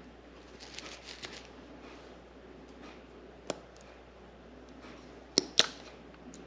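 Hands handling an Insta360 X3 action camera: light rustling, one click midway, then two sharp plastic clicks close together near the end as its battery door is opened.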